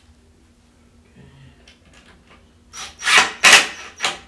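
Cordless drill driving a screw into the bamboo top of a kitchen cart, in three or four short loud bursts starting about three seconds in, with the screw grinding into the wood.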